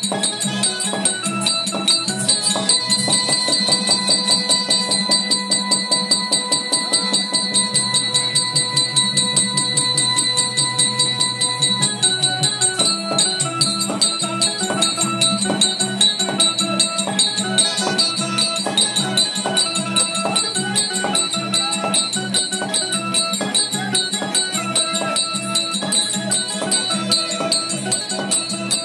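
Tamil village drama band playing: fast, steady drumming with jingling, a single long note held for several seconds in the first half, then a moving melody over the beat.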